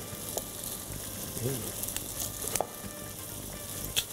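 Onion frying in a pot, sizzling steadily, with a few sharp snaps as chunks of raw potato are cracked off against a knife blade, the loudest near the end.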